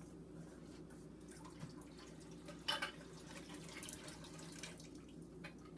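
Faint water sounds at a kitchen sink, dripping and light splashing as canning-jar lids are lifted out of hot water, with one brief clink about two and a half seconds in over a steady low hum.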